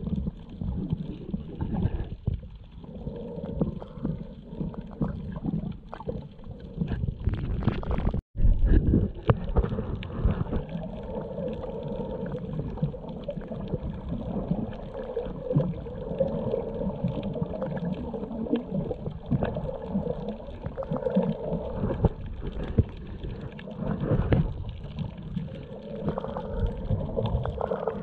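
Muffled underwater water noise picked up by a submerged action camera: a steady low rumble and gurgle of moving water. It drops out for an instant about eight seconds in.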